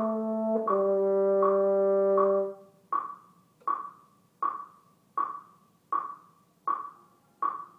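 French horn holding two sustained notes, the second a step lower, which stop about two and a half seconds in. Under them and then on their own, a metronome keeps ticking evenly, a little over one click a second, counting out the rest bars left for the students to echo.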